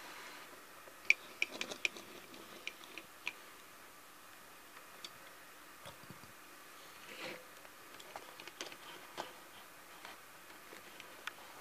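Scattered small clicks and taps from a die-cast model car transporter's deck and ramps being handled: a quick run of sharp clicks about a second in, a soft rustle past the middle, then a few more clicks.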